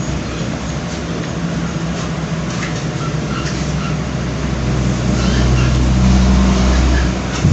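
A low vehicle engine rumble with a steady hum. It grows louder over the second half and drops away just before the end, like a heavy vehicle passing. Faint small clicks from eating are heard in the middle.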